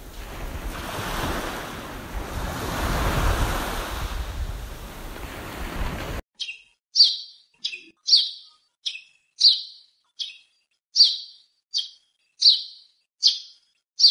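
Small waves washing up and draining back over a sandy beach, swelling and easing. About six seconds in the surf cuts off abruptly, and a bird gives a run of short, high chirps, roughly one and a half a second, with silence between them.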